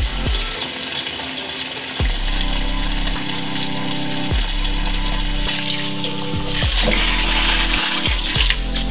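Tap water running and splashing onto vegetables and fruit in a stainless steel sink, under background music whose held notes change every two seconds or so.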